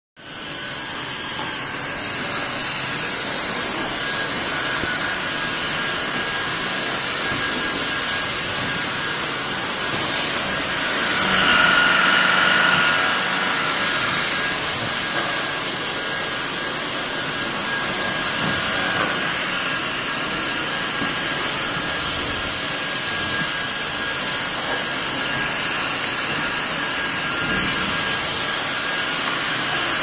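Vacuum cleaner running steadily: a loud, even whining hiss with thin steady high tones, building to full speed over the first two seconds. About 11 seconds in it briefly grows louder and changes pitch for a couple of seconds, then settles back.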